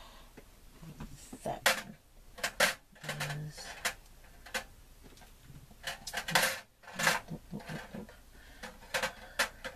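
Small metal keys and charms clinking and tapping against each other and a hard surface as they are picked through and set down, in scattered irregular clicks.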